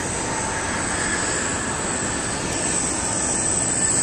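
Jet airliner engines running: a steady rushing noise with a faint whine over it, growing slightly louder.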